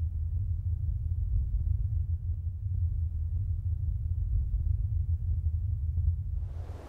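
A steady deep rumble with no clear tune or pitch. A faint hiss comes in near the end.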